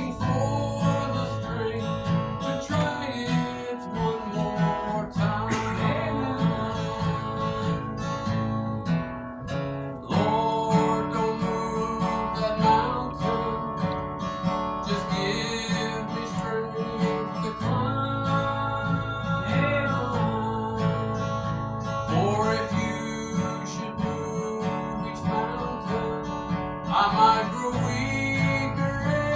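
Acoustic guitar strummed steadily in a gospel-style song, with a melody gliding over the chords.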